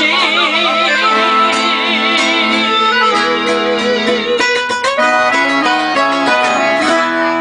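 Instrumental break of a sentimental ballad: a wavering melody line with vibrato over plucked guitar, moving into quicker, choppier notes about halfway through.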